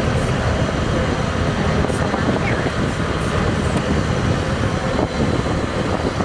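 A two-masted schooner's diesel engine running steadily as the vessel motors along, under a steady rushing noise.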